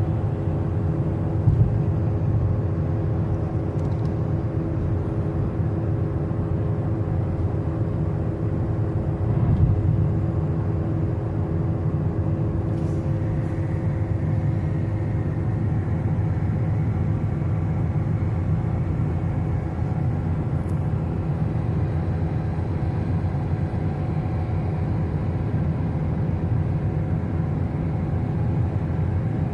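Steady road and engine noise of a vehicle driving along a highway, a low even rumble with a faint steady hum above it. There is a short bump about a second and a half in and another near ten seconds in.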